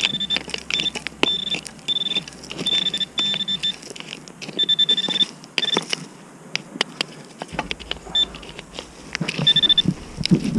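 Simplex metal detector sounding a high-pitched target tone in short broken beeps as the coil sweeps over a signal. It goes quiet about six seconds in and beeps again near the end. Scrapes and knocks against the ground run throughout.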